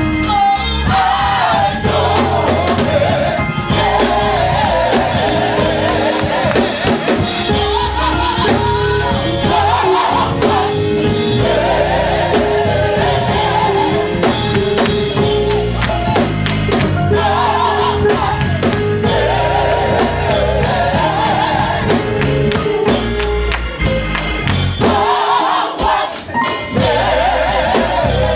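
Gospel music: voices singing a wavering melody over instrumental backing, with a held note and a strong bass line.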